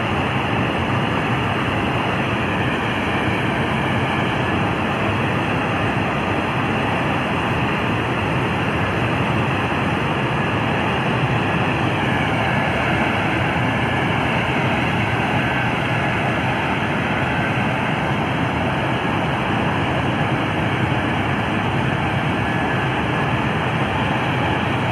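Loud, steady engine drone inside a C-17 cargo hold as a heavy tanker truck drives slowly toward the ramp, with faint whines that rise and fall now and then.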